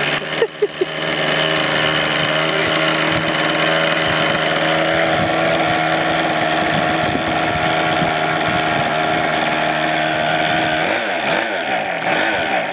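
Kyosho Calmato RC trainer's model glow engine starting under a hand-held starter within the first second, then idling steadily at an even pitch. Near the end its pitch wavers up and down.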